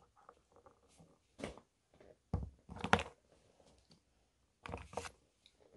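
Light, scattered taps and knocks of miniature toy grocery packages being picked up and set down on a tabletop, a few clicks a second apart.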